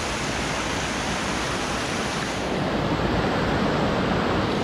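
Fast-flowing mountain river rushing over whitewater rapids: a steady, loud rush of water.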